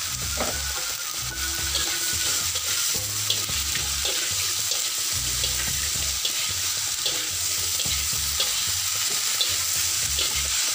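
Sliced bitter gourd, oyster mushrooms and fish cake sizzling in a wok as a metal spatula stirs and turns them, with light scraping ticks of the spatula against the pan.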